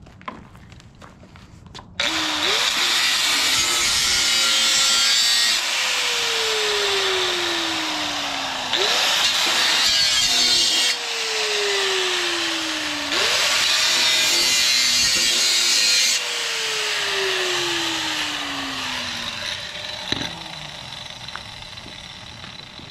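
Angle grinder with a cut-off wheel cutting through a CD009 transmission's bell housing in three runs, each a loud gritty hiss of the wheel in metal. After each run the motor winds down with a slowly falling whine. A single knock comes near the end.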